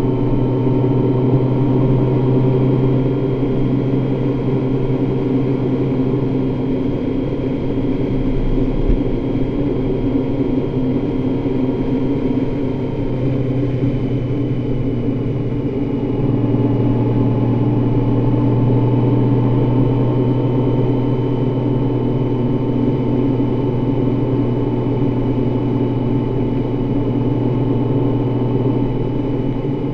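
Honda Gold Wing motorcycle engine running steadily at cruising speed, heard from on the bike. The engine note changes about halfway through and then holds steady again.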